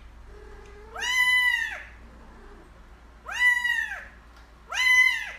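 A cat meowing three times, each meow rising and then falling in pitch, with a fainter, lower call just before the first.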